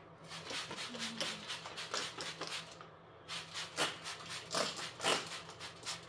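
Trigger spray bottle of antibacterial cleaner being squirted again and again: a quick run of short hissy spritzes, a brief pause about halfway, then more spritzes.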